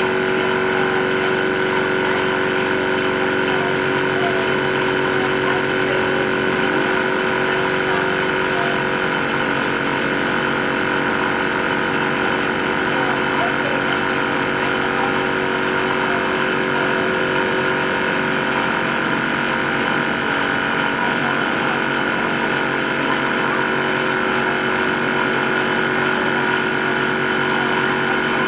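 Portable electric two-stage reciprocating high-pressure (300 bar) air compressor running steadily under load while filling a carbon fibre air cylinder. A faint high whine drops out about two-thirds of the way through.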